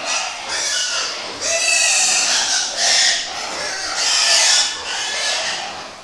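A group of young white pigs squealing, with four or so loud, high, harsh cries in quick succession.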